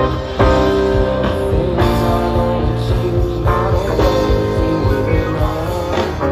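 Live rock band playing electric guitar, bass and drums, amplified through the stage sound system and heard from the audience.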